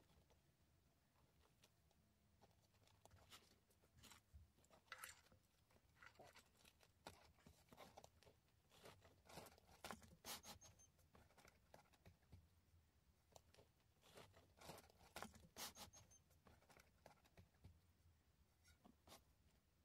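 Faint, irregular clicks and rustles of hands handling wiring and shifting a compact under-seat subwoofer box on a car floor mat.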